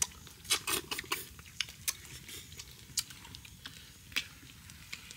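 Small campfire of dry twigs and sticks crackling, with irregular sharp snaps and pops.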